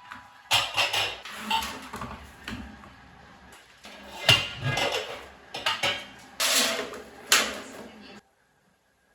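Household handling sounds: a series of clinks, knocks and clatters of hard objects being moved about, with several louder knocks. The sounds cut off abruptly near the end.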